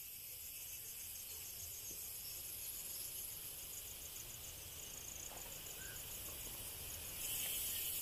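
Insects chirping in dense forest: a fairly faint, high, rapidly pulsing trill over a steady high hiss, growing louder about seven seconds in.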